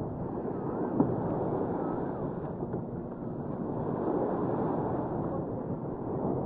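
Outdoor beachfront ambience: a steady, dense wash of noise with wind on the microphone. A single sharp click comes about a second in, and a few faint chirps rise and fall in the first two seconds.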